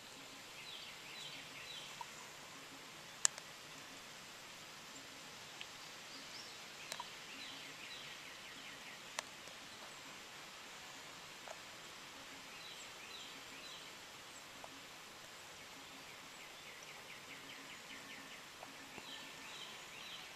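Faint steady hiss of light rain, with a songbird singing short trilled phrases four times. A few sharp clicks stand out, the loudest about three seconds in.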